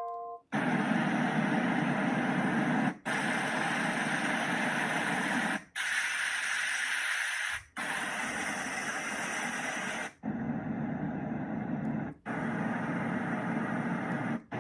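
DreamSky sleep sound machine playing its white noise tracks one after another: six steady hissing noises, each a little different in tone, each lasting two to three seconds and cut off by a short gap as the next track is selected.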